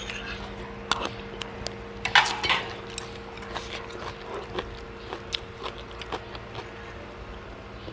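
Eating sounds: chewing, with a scatter of small clicks of a spoon and chopsticks against ceramic bowls, loudest in the first three seconds. A faint steady hum runs underneath.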